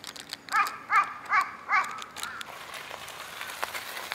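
A crow cawing four times in quick succession, about two and a half calls a second.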